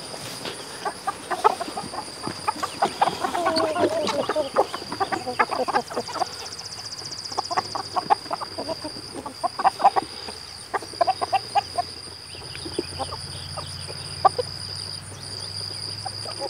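A flock of chickens, American Bresse hens and roosters with a few Marans, clucking busily in short bursts, with one longer falling squawk about four seconds in. A steady high-pitched insect drone runs underneath.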